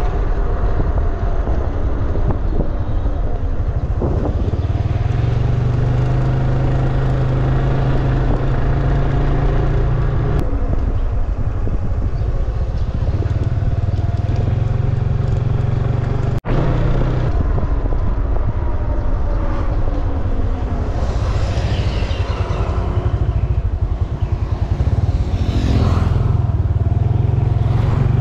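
Motor scooter engine running steadily while being ridden along a road, heard from the rider's seat, with a momentary break in the sound a little past halfway.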